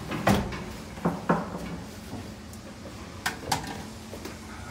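Knocks and clunks as a clothes dryer is carried up a flight of wooden stairs: one sharp knock near the start, two close together about a second in, and two more past the three-second mark.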